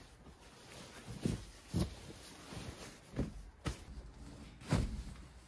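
Rustling and a few short knocks as a sleeping bag and foam sleeping pad are spread out and gear is shifted on the floor of a steel bin. There are about five separate bumps, the last near the end the loudest.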